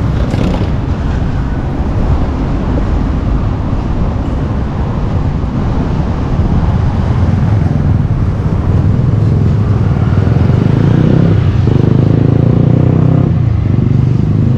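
City street traffic: a steady wash of cars and other vehicles driving past, a little louder from about eight seconds in.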